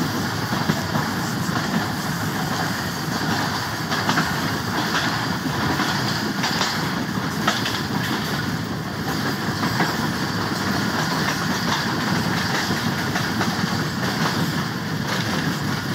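Train running on the rails: a steady rumble with scattered clicks and knocks.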